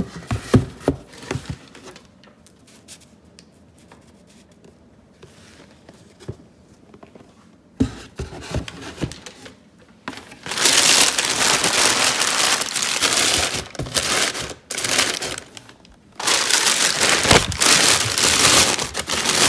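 A few light knocks as a gift box is set down in a cardboard shipping box, then white packing paper crumpled and stuffed into the box, loud and crackly for most of the second half with a brief pause.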